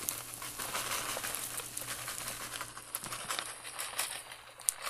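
Rice frying in a stainless steel pan with leftover spicy seafood-stew sauce: a steady crackling sizzle, with scrapes and taps of a silicone spatula stirring it and a few sharper clicks near the end.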